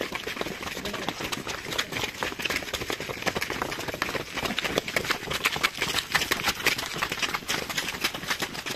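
Footsteps of a group of runners going up stone steps: a dense, irregular patter of many footfalls.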